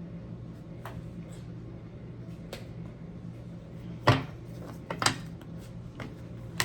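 Tarot cards being handled on a table, making a few light, scattered taps and knocks, the loudest about four seconds in, over a low steady hum.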